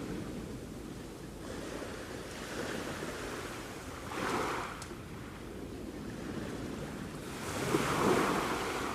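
Sea waves washing onto the shore in a steady rush, with two waves breaking louder, about four seconds in and again near the end.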